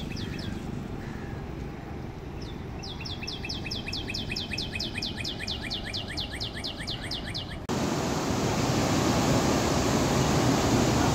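A bird calls a fast, even run of short high down-slurred chirps, about four or five a second. About eight seconds in the sound cuts abruptly to the loud, steady rush of a monsoon-flooded river running high and fast through a narrow rock gorge.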